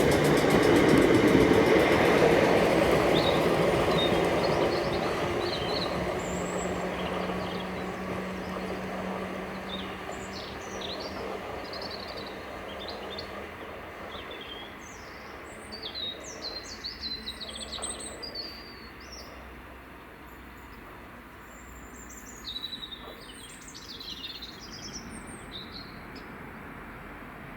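A passing train's running noise fades away over the first dozen seconds or so. Small birds chirp and sing throughout, most busily in the second half.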